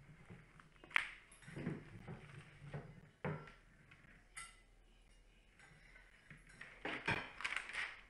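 Stainless steel dog bowl clinking and knocking on the floor as a dog eats from it: a few sharp knocks, some with a short metallic ring. Near the end, newspaper pages rustle as they are turned.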